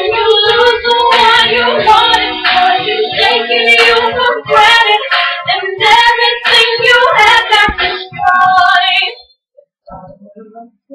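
Women's voices singing loudly into a webcam microphone, the singing breaking off abruptly about nine seconds in.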